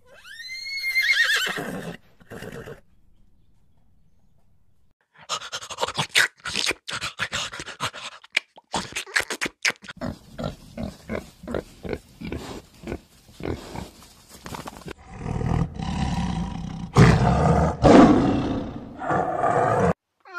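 A series of animal sounds: a short call with a rising then falling pitch, then a pig's rapid crunching chewing and snuffling, then loud, deep growling roars from a tiger near the end.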